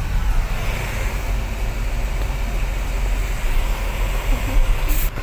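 Steady road and wind noise of a moving car heard from inside the cabin: a heavy low rumble under a broad hiss, with a short burst of sharper hiss near the end.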